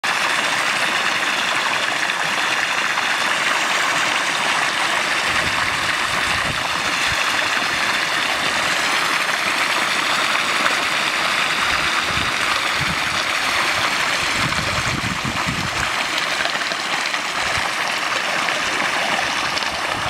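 Foam-laden sewage outflow rushing and churning in a steady stream of water.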